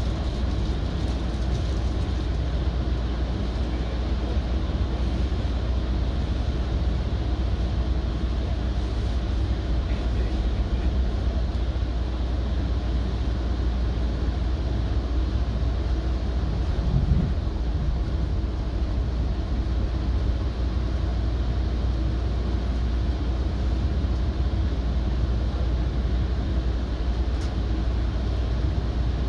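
Steady low rumble of a Metrolink commuter train heard from inside a passenger car while it runs along the line, with one brief low bump a little past halfway.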